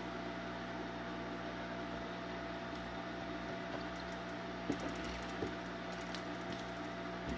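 Steady hiss with a low electrical hum, and a few faint light clicks a little past halfway.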